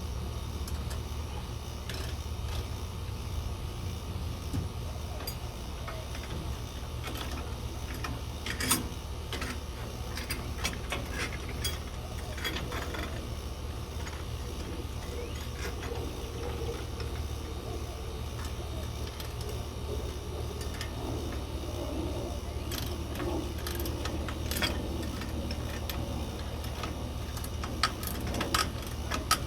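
Scattered mechanical clicks and light metal handling over a steady low hum.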